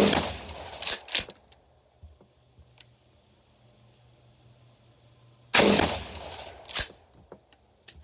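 Two shotgun shots about five and a half seconds apart, firing handloaded mini-shell slugs with tail wads. Each shot is followed within about a second by shorter sharp clacks.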